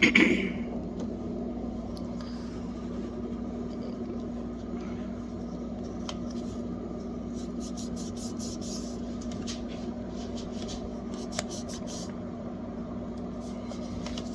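Cleaning cloth rubbing along a refrigerator's rubber door seal in short scratchy strokes, over a steady low hum. A few loud knocks come right at the start.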